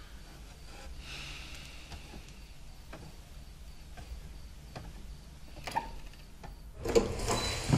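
Quiet room ambience with a few faint clicks, then near the end a sudden clatter of footsteps and a door as people come into the room.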